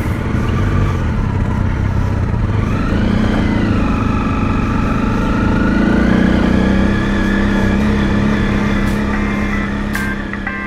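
Single-cylinder engine of a Honda CRF250L Rally motorcycle accelerating: the pitch climbs, drops briefly at a gear change, climbs again and then settles into a steady drone.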